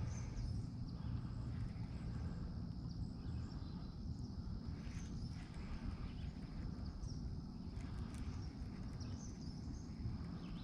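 Outdoor ambience on the water: a steady low rumble of wind and water noise, with a thin steady high-pitched hum and scattered faint bird chirps.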